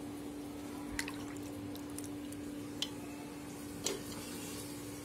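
Hand swishing small fish in a bowl of water, with three small drips or splashes, over a steady hum.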